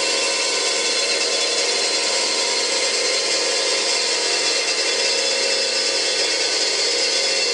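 Hyd-Mech S20 horizontal metal-cutting bandsaw running steadily, its blade and drive giving a constant high hiss over a set of steady tones.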